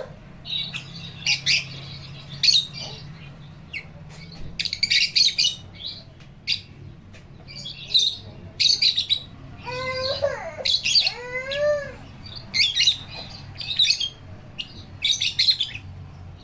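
Pet African lovebirds and a cockatiel chirping, many short high-pitched chirps in quick clusters, with two longer, lower calls that rise and fall about ten seconds in.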